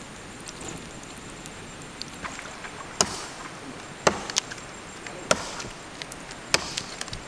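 A blade chopping on wood: after a few light taps, five sharp chopping strikes come roughly a second apart from about three seconds in, the first the loudest, over a faint steady background hiss.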